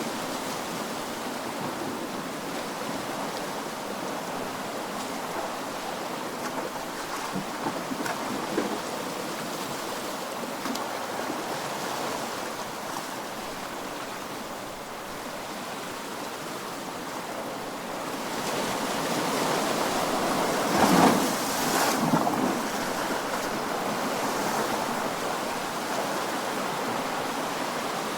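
Ocean waves washing steadily, with one larger wave building and breaking about three-quarters of the way through.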